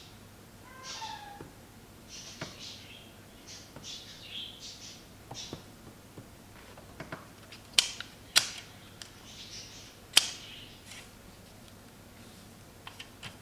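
A Crucial DDR4 laptop RAM module being handled and pressed into a laptop memory slot. There is light scraping and tapping, then three sharp clicks in the second half as the module seats and the slot's side clips latch.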